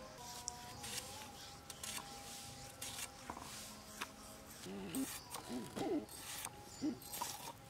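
Green tomatoes being cut on a boti, a curved blade fixed upright on a wooden base: a series of short, crisp cutting clicks at an uneven pace. Animal calls waver in the background, mostly in the second half.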